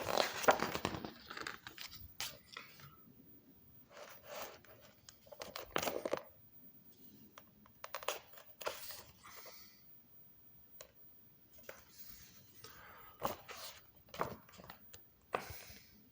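Pages of a book being turned and handled: a series of short paper rustles, one every second or two.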